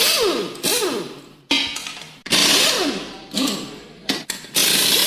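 A power tool run in repeated short bursts, each starting suddenly with a hiss and a falling whine, then fading before the next.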